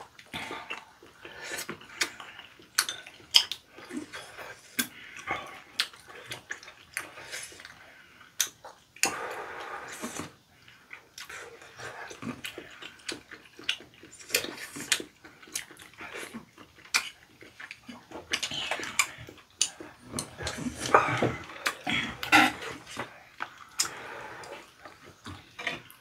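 Two people eating chewy tteokbokki rice cakes: wet chewing and slurping, with chopsticks clicking against the dishes. The slurping comes in longer stretches about ten seconds in and again around twenty seconds in.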